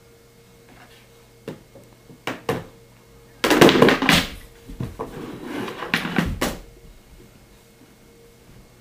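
Small plastic children's chairs knocking against a wooden table and clattering as they are pushed off it: a few light knocks, then a loud clatter about three and a half seconds in and another around six seconds in.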